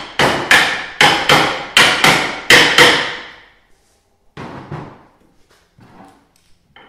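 A claw hammer strikes steel nuts threaded onto the ends of carbide runner bolts, driving the bolts out of a plastic Ski-Doo Pilot 5.7 ski. There are about eight sharp metal blows in quick pairs, each ringing briefly, followed by a couple of much fainter knocks.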